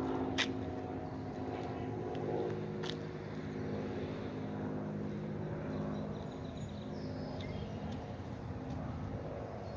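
Ford 200 cubic-inch inline-six engine of a 1967 Mustang, fitted with headers and dual exhaust, idling steadily.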